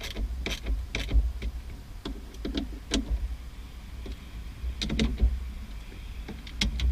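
Irregular clicks and knocks of hard shifter and console parts being handled and forced into place, over a low rumble.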